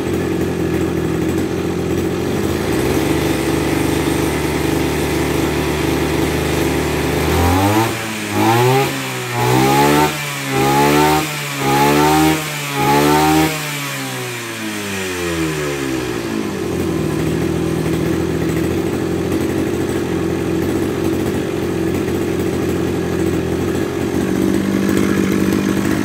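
Maruyama MKF330 brush cutter's 33 cc two-stroke engine idling, then blipped up to high revs about five times in quick succession with the throttle trigger before it drops back to a steady idle.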